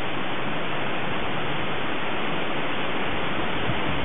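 Steady, even rushing noise with no breaks.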